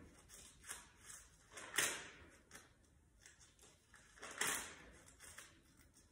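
Thin Bible pages being turned by hand: a series of soft paper rustles and flips, the loudest about two seconds in and again a little after four seconds.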